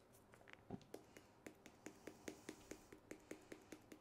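A jar of sweet paprika being shaken over toast: a rapid, even run of faint clicks, about five a second, getting going about a second in.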